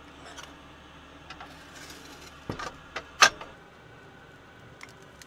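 A few light clicks and knocks of hands working at a small wood stove, with one sharper metallic clink about three seconds in, over a faint steady background.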